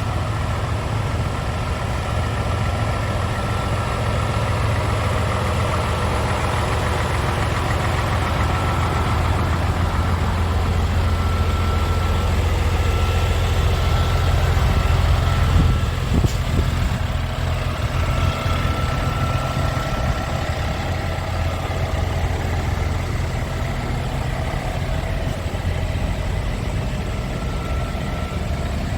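Scania R500 truck's inline-six diesel idling steadily, with one short knock about halfway through.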